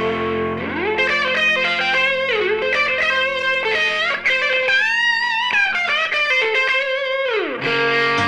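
Background music: electric guitar playing a melody with pitch bends and slides over sustained chords.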